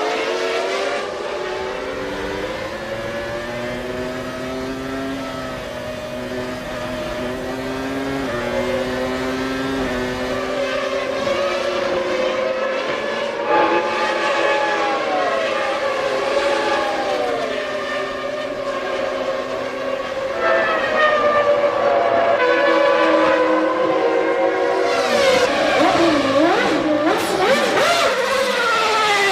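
Formula One race car engines running at high revs, their pitch stepping up and down with gear changes. Near the end several cars pass close together, their notes swooping and crossing one another.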